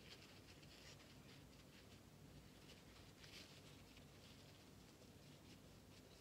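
Near silence: room tone with a few faint, short ticks and rustles.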